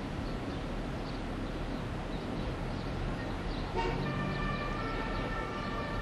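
A steady rushing background noise; a little under four seconds in, a horn starts sounding, a held chord of several tones that keeps going.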